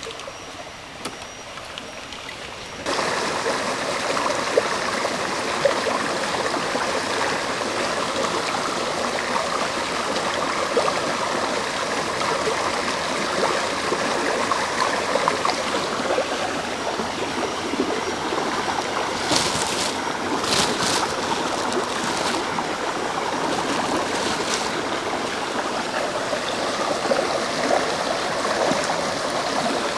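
Shallow rocky stream running and babbling: a steady rush of water that starts suddenly about three seconds in. A few brief sharp sounds about two-thirds of the way through come as leafy greens are rinsed in the water.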